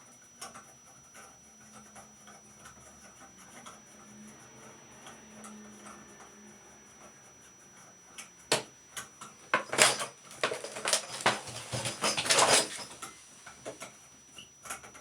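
Metal tool clinking and rattling against a shower faucet stem as the stem is threaded into the valve body and tightened. A few sharp clicks start about eight seconds in, then a dense run of clanks and rattles follows for about three seconds.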